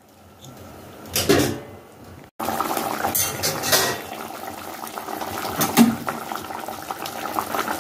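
A pot of vegetable sauce boiling hard: a steady bubbling with many small pops, starting abruptly about two seconds in after a quieter stretch with one short sound.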